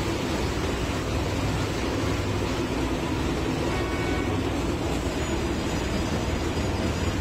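Sleeper-group track-laying machine running: a steady mechanical drone and rumble from its engine and sleeper conveyor.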